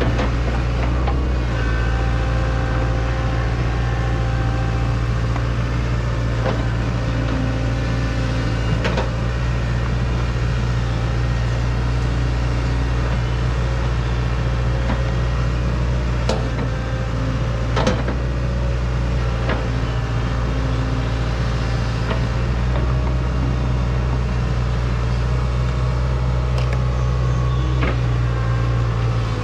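Hitachi 120 excavator's diesel engine running steadily, with a few sharp metallic clanks from the machine at irregular intervals.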